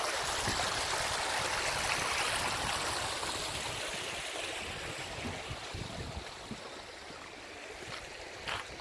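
Shallow upland stream running over flat rocks: a steady rushing that fades gradually through the second half.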